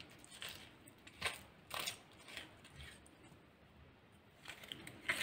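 Metal vegetable corer scraping out the seeds and flesh of a cucumber: a handful of short, faint scraping rasps at irregular intervals.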